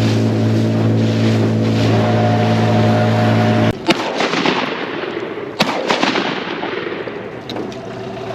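A boat motor running steadily cuts off, and moments later two shotgun shots ring out about a second and a half apart, followed by a noisy wash.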